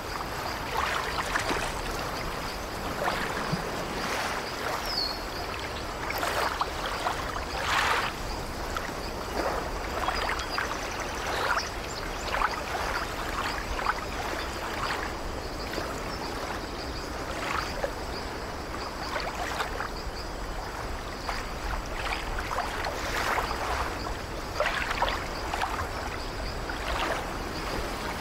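Surf washing onto a shoreline: a steady hiss of moving water with irregular splashing, fizzing surges every few seconds.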